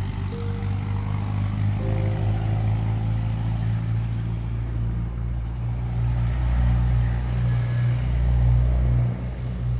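Background music dominated by a deep, steady bass drone, with some held higher notes.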